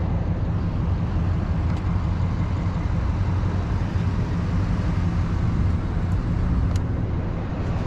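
Steady low engine drone and road noise of a truck on the move, heard from inside its cab.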